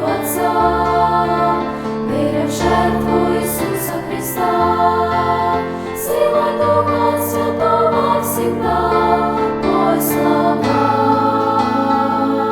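Christian worship song: a choir of voices singing in harmony over an instrumental backing with a bass line that changes note every second or two.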